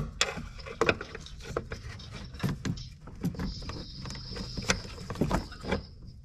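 Irregular clicks and light knocks of a screwdriver working against metal fittings and lines under a car. A faint steady high whine comes in about halfway through.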